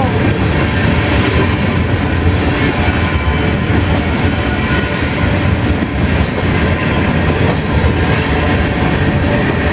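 Freight train tank cars rolling steadily past, with the continuous loud noise of steel wheels running over the rails.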